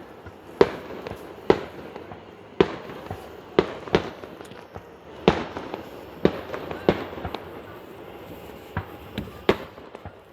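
Aerial fireworks bursting during the grand finale: a string of sharp bangs, roughly one a second, over a constant crackle.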